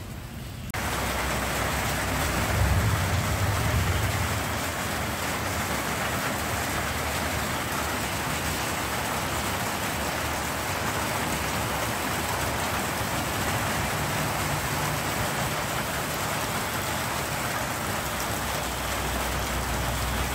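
Heavy rain falling steadily onto flooded ground, a dense even hiss that jumps louder just under a second in. A low rumble rises under it about two to four seconds in.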